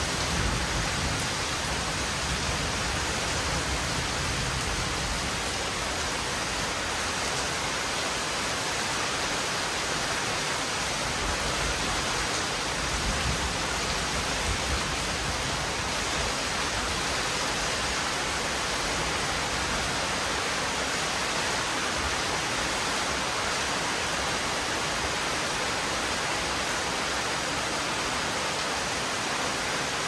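Heavy rain pouring steadily, a dense even hiss of rain on surfaces.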